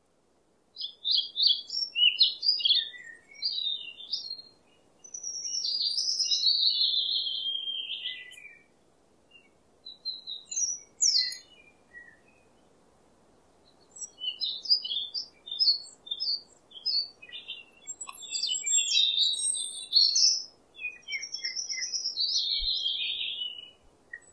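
Birds singing and chirping in phrases of quick high notes and warbles, with short pauses between phrases, over a faint steady background hiss.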